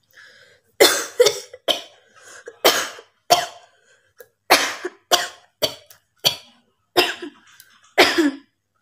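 A woman coughing on purpose for a coughing challenge: about eleven sharp, forced coughs in a row, spaced roughly half a second to a second apart.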